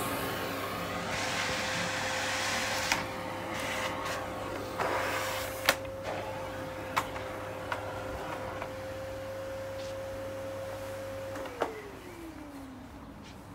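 Canister vacuum cleaner running with a steady whine and rushing air, broken by a few sharp knocks. Near the end it is switched off with a click and the motor winds down, its whine falling in pitch as it fades.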